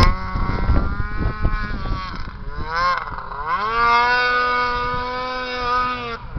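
Ski-Doo MX Z 600 snowmobile engine running hard on a hill climb. The pitch dips about two to three seconds in, rises again and holds high and steady, then drops away suddenly near the end.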